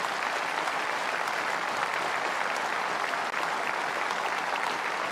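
Large crowd applauding: many hands clapping at once, steady throughout.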